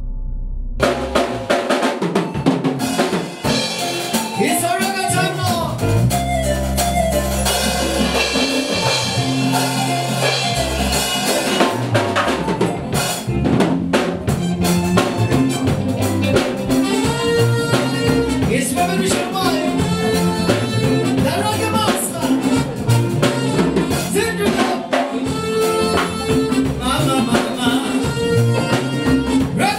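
Live band playing with a drum kit driving the beat, electric guitars, keyboard and congas. It comes in about a second in.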